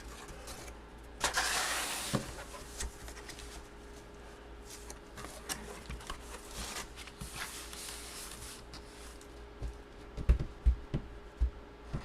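Handling noises on a tabletop: a brief rustle about a second in, scattered small clicks and taps, then a few soft low thumps near the end, over a faint steady hum.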